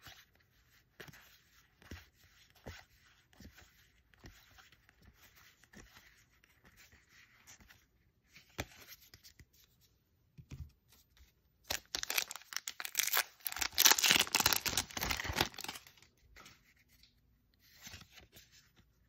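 A foil-laminate trading-card booster pack wrapper being torn open: a crinkly tearing that lasts about four seconds, starting about two-thirds of the way through. Before it, soft clicks and slides of stiff playing cards being shuffled through by hand.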